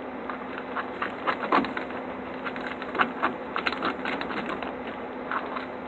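Glue and shaving cream being stirred together into a thick, marshmallowy slime paste: irregular soft clicks and squishes of the mixing.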